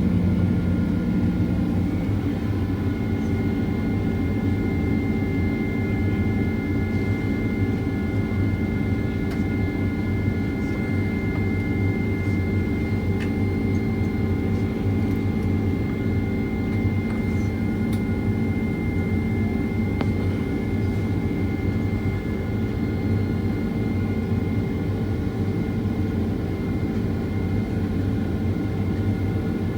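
Steady jet engine noise heard inside the cabin of a Boeing 767-400ER, from its General Electric CF6-80C2 engines. A deep even rumble runs under several steady high whines.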